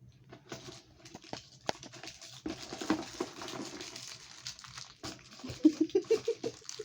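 Plastic snack wrappers and chip bags crinkling and rustling as they are handled, with sharp clicks and crackles.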